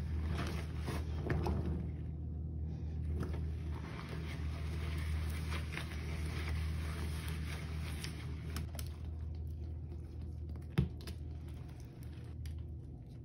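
Kitchen sponge squeezed and worked by rubber-gloved hands in a basin of foamy bleach and Roma detergent water: wet squelching, dripping and splashing, busiest in the first few seconds, over a steady low hum. One sharp click about eleven seconds in.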